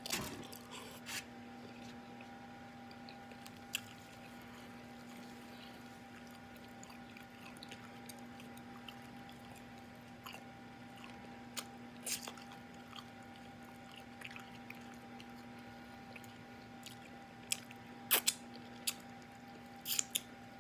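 Close-miked eating of fufu and egusi soup: chewing, with scattered short wet lip-smacks and mouth clicks, several louder ones near the end. A steady faint hum runs underneath.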